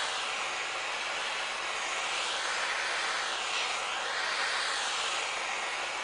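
Handheld gas torch burning with a steady hiss as its flame heats a copper oxalic acid vaporizer pipe. The hiss slowly shifts in tone up and down as the flame is swept back and forth along the pipe.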